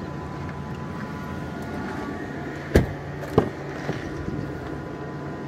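Two sharp door clunks of a Ford F-150 Lightning pickup about half a second apart, followed by a few lighter clicks, as the cab door is shut and the rear door is unlatched and swung open, over a steady hum.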